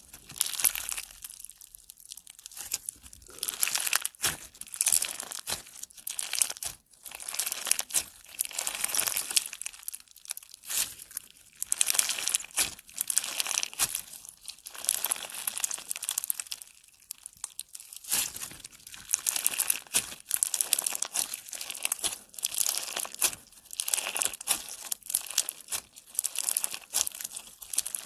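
Slime being squeezed and pressed by hand, giving off fine crackling in repeated bursts of a second or two with short pauses between.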